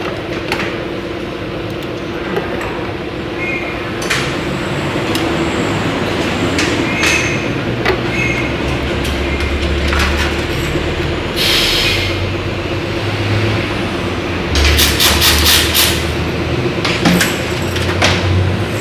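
Suzuki Raider 150's carburetted four-stroke single-cylinder engine running, with the throttle opened up twice, about halfway through and again near the end. The revs are being checked for how fast they rise and how slowly they fall back while the carburettor is tuned.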